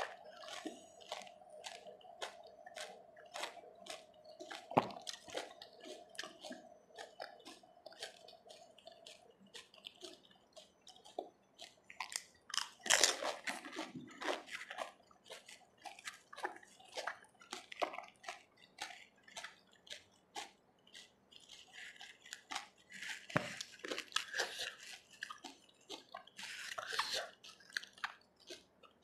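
Close-miked eating of pani puri: crisp puri shells crunching and being chewed, with wet slurping and dripping of the spiced water in bursts, the loudest about halfway through and again near the end.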